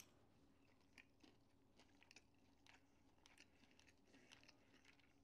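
Faint chewing of a bite of almond-and-Parmesan-crusted chicken, with small irregular crunches of the breading.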